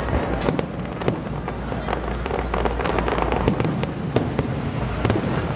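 Aerial firework shells bursting: a dense run of sharp bangs and crackles over a continuous low rumble.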